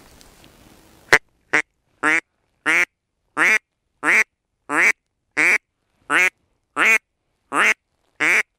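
A duck quacking in a steady series of about a dozen evenly spaced quacks, roughly one and a half a second, starting about a second in; the first two are short and the rest last about half a second each.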